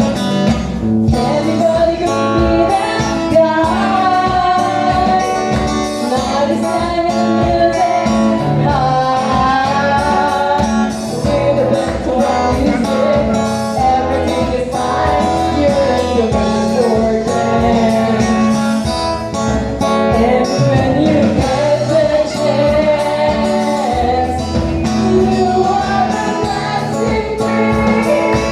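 Live band playing a song, a singer's voice carrying the melody over guitar and a steady beat.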